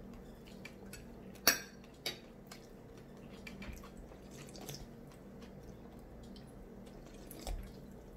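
Small clicks and knocks of a soda can being handled and drunk from, the loudest a single sharp click about one and a half seconds in, over a faint steady hum.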